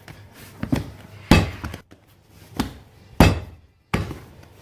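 Stiff sourdough bread dough being kneaded by hand and slapped down onto the work table: a series of heavy thuds, roughly one a second.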